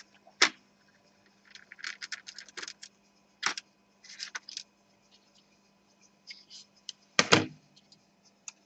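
Small clicks, taps and scrapes of laptop parts being handled while the cooling fan is taken out, with one heavier knock about seven seconds in. A faint steady hum underneath.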